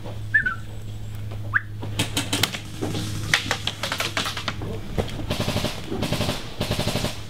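Airsoft guns firing: scattered rapid clicking shots, then fast bursts of automatic fire at about ten shots a second during the last couple of seconds.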